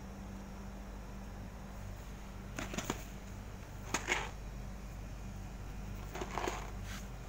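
Three short bursts of crackling clicks, about a second or two apart, over a steady low hum.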